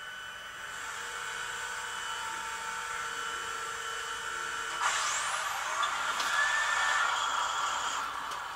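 Sound decoder in an N scale SC-44 Charger model playing the locomotive's diesel startup sound through its small onboard speaker. A steady hum grows louder, and a rising whine about five seconds in marks the engine spinning up as track power is first applied.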